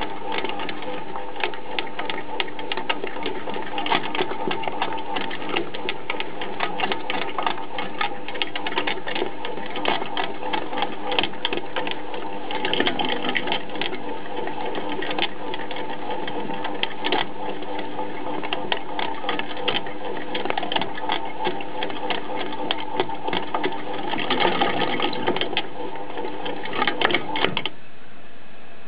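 A small machine running steadily with a squeak and rapid clicking, stopping near the end.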